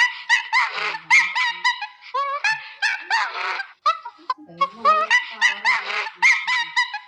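A flock of waterfowl calling: many short, pitched calls overlapping in rapid succession, rising and falling in pitch.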